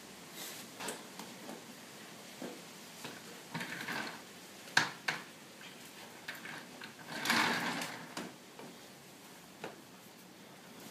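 Suspension training straps and their hardware clicking, creaking and rubbing under a person's weight during dips: scattered light clicks, two sharp clicks about five seconds in, and a longer rough rustle around seven seconds in.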